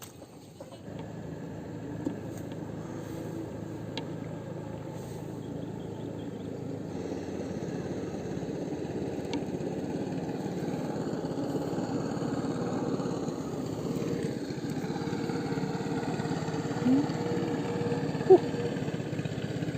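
A steady motor running, growing slowly louder, with a few short sharp sounds near the end.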